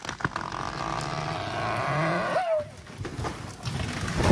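A large felled tree going over: the wood creaks and groans in a long pitched tone that rises and breaks off, then the trunk crashes to the ground near the end.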